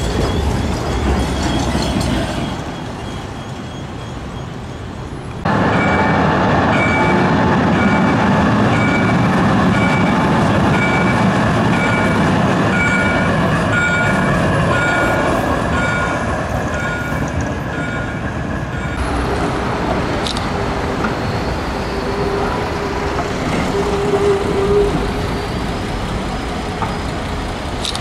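Vienna trams passing along street track, running with a rumble of wheels and motors. In the middle stretch, as an E2 tram with its c5 trailer goes by, the rumble is louder and a high electronic beep repeats about every two-thirds of a second.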